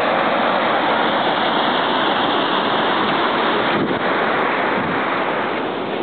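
Gullfoss waterfall's water rushing, a loud, steady wash of noise that eases slightly near the end.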